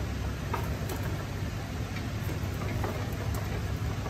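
Diesel engine of a Mitsubishi Fuso Canter dump truck running steadily at idle, heard from underneath the truck, with a few faint light ticks.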